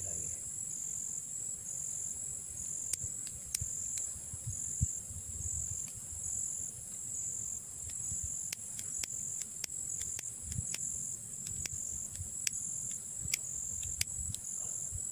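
Insects, crickets by their sound, chirping in a high-pitched pulsing trill about twice a second over a steadier higher hum. Under it runs a low rumble of wind on the microphone, with a few scattered sharp clicks.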